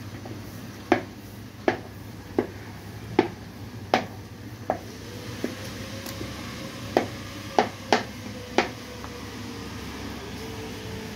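A wooden-handled masher pounding cooked wheat and lentils in an aluminium pressure cooker, knocking against the pot about once every 0.7 seconds. The knocks stop near the end, leaving a steady low hum.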